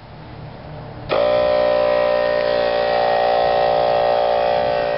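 A small portable electric air compressor is switched on about a second in. Its motor comes up to speed almost at once and runs with a loud, steady hum.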